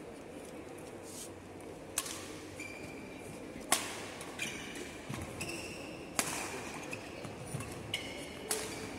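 Badminton rally: the shuttlecock is struck by racquets about every one to two seconds, a sharp crack each time, with short squeaks of shoes on the wooden court floor between hits, over a steady hum of the hall.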